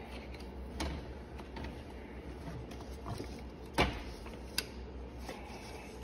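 A few knocks and a sharp click as a CSF aluminium radiator and fan assembly is worked into a car's engine bay and its top mounting bracket is fitted by hand. The loudest knock comes a little before four seconds in, over a low steady hum.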